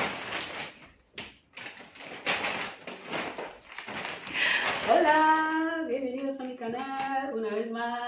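Rustling and shuffling of someone moving about at a leather sofa. About five seconds in, a woman's voice starts in a drawn-out, sing-song vocalising.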